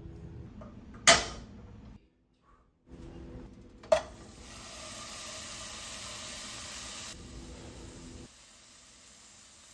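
A sharp clack about a second in, then a knock as a raw hamburger patty goes into a frying pan, followed by a steady high sizzling hiss of the patty frying that cuts off suddenly after about three seconds.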